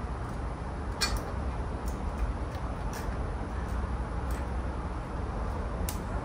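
Scattered light clicks and ticks, about five at irregular spacing, from a tape measure and spring-nut bolt hardware being handled against steel Unistrut channel, over a steady low background rumble.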